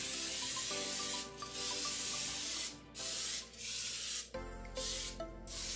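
Olive oil cooking spray hissing from a spray can in a run of bursts: two of over a second each, then several shorter ones.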